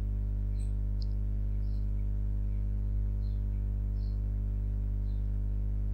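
Steady low hum, with faint short high-pitched chirps now and then.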